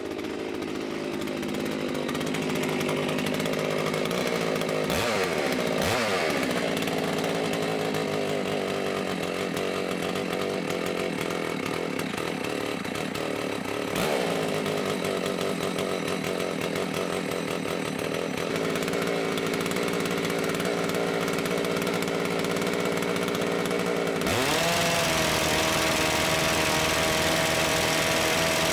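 Two-stroke chainsaw engine of a Farmertec G660 (Stihl MS660 clone) running a railway impact wrench, its speed dipping briefly a few times. About 24 seconds in it revs sharply up to full speed and holds there, much louder, as the wrench drives against a torque tester.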